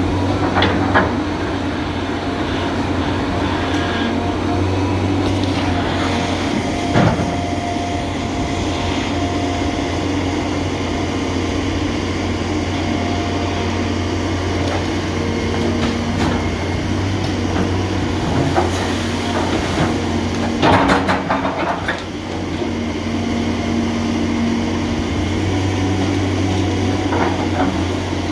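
John Deere 350G excavator's diesel engine running steadily as it works, with a few sharp knocks about a second in, around seven seconds in and again later as the bucket hits floating logs and debris.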